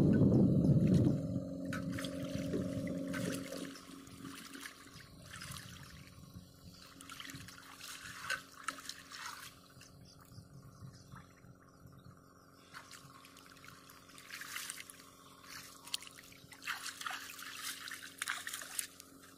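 Water splashing and trickling as hands scoop and stir in a basin standing in shallow pond water, with several brief louder splashes. A loud low rumble fills the first second or so.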